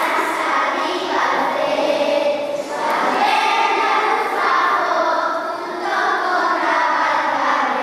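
A group of third-grade schoolchildren singing a song together in chorus, in phrases with short breaks between them.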